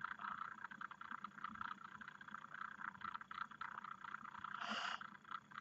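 A person's short, noisy breath near the end, over a faint, steady crackling hiss.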